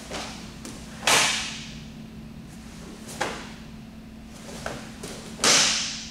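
Karate gi snapping with fast kicks and strikes: about five sharp cracks, the loudest about a second in and near the end, each with a short echo in the hall.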